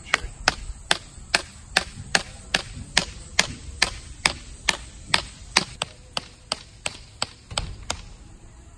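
Steady hammer blows driving a guy-wire stake into the ground: about twenty sharp strikes, a little over two a second, stopping near the end.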